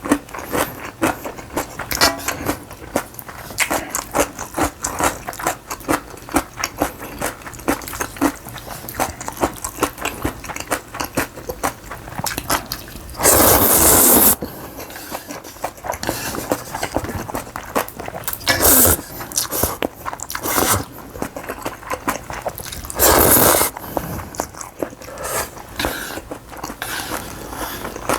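Close-miked eating: a steady run of chewing and crunching clicks from a person eating noodles and radish kimchi, with loud slurps of noodles about halfway through and again near the end.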